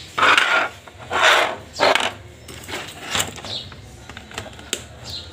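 Short rustling and scraping handling noises, the three loudest in the first two seconds and fainter ones after, as papers are cleared off the workbench and a graphics card is moved about on the mat.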